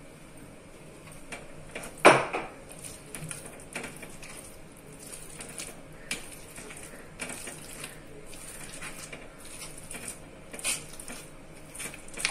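Masher mashing and mixing pav bhaji vegetables in an iron kadhai: scattered soft squelches and clinks of the masher against the pan, with one sharp clank about two seconds in.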